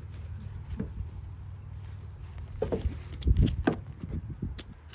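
Recovery gear being handled on a pickup's tailgate: a braided synthetic soft shackle set down and a recovery bag's strap and buckle grabbed, giving a few scattered knocks and rustles. The loudest is a dull thump a little past three seconds in, over a low steady rumble.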